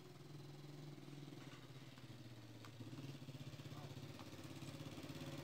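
A small engine running steadily and faintly, slowly getting louder toward the end.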